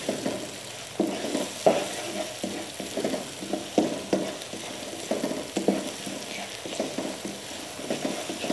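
Chopped onions sizzling in hot oil in a wok, stirred with a spatula that scrapes and knocks against the pan in an irregular run of strokes. The onions are at an early stage of frying, being softened without browning for a curry gravy base.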